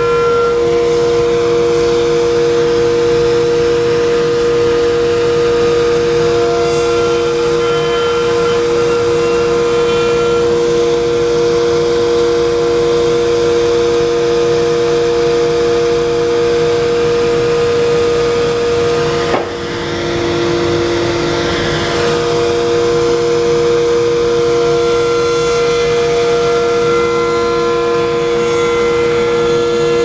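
Table-mounted wood router running at speed with a steady, loud whine while a wooden handle blank is fed along the fence past the bit. About two-thirds of the way through, the whine briefly dips and a rush of cutting noise follows for a couple of seconds.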